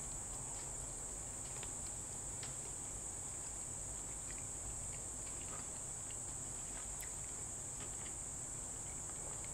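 A steady, high-pitched insect drone from outside, with a few faint small clicks.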